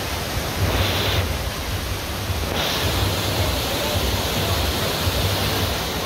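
Small waterfall cascading over rocks: a steady rush of splashing water, slightly louder from about two and a half seconds in.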